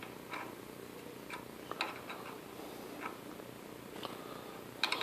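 Faint, light clicks and taps of small hand tools and a lubricant container being handled while cutting fluid goes onto a tap in a freshly drilled hole, over a steady low workshop hum.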